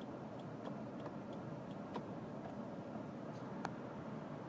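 Honda Civic VII's 1.3-litre LDA engine idling steadily, heard from inside the cabin, with a few faint irregular ticks over it.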